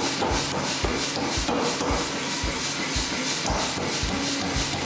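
Power hammer running, its dies striking a glowing steel hammer head held in tongs in a steady rhythm of repeated blows over the continuous noise of the machine.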